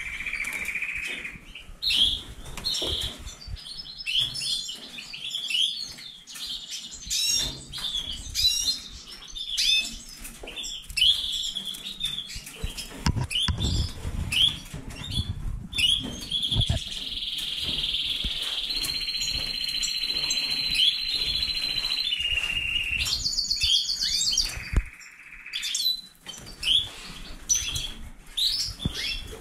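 Many caged finches (European goldfinches, Magellan siskins and colour canaries) chirping and calling constantly in quick short notes. One bird sings a long continuous song for several seconds past the middle, followed by a brief buzzy high trill. Soft low thumps are scattered throughout.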